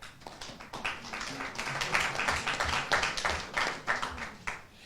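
Audience clapping and applauding, building up after a moment and dying away near the end.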